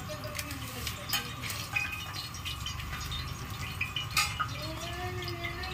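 Metal spatula and ladle clinking and scraping against a large flat iron griddle as chicken pakoda pieces fry in oil, in irregular sharp clicks over a steady hum.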